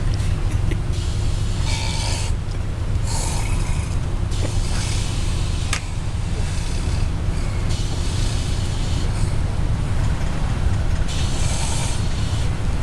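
Steady low drone of a moving bus. Over it a man snores, one breath about a second long every one to three seconds.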